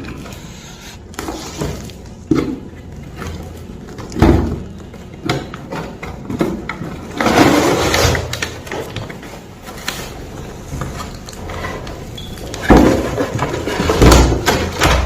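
Irregular knocks, thumps and rustling of things being handled, with a longer rustling stretch partway through and a heavier thump near the end.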